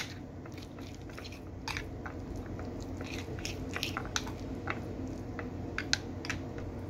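A fork mixing soft garlic-parsley butter in a ceramic bowl: irregular squishing with light scrapes and clicks of the fork against the bowl, over a steady low hum.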